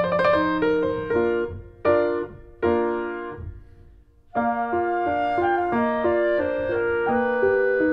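Background piano music: a few struck chords that die away, a brief pause about four seconds in, then a steady flowing run of notes.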